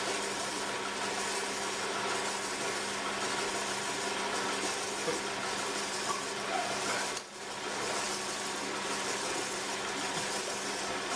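Potter's wheel running with a steady mechanical hum as it spins a wet clay vase. The sound briefly dips about seven seconds in.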